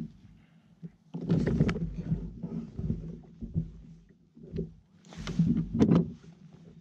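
Rustling and knocking as a landing net holding a freshly landed trout is handled in a kayak, in two bursts, one about a second in and one about five seconds in, with a few single knocks between, over a steady low hum.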